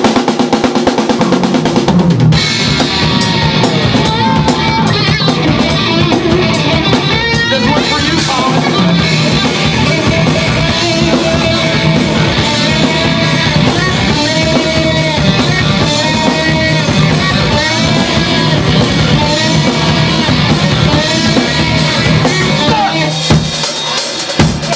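Rock band playing live: the drum kit opens alone for about two seconds, then bass and the rest of the band come in on a repeating riff over the drums.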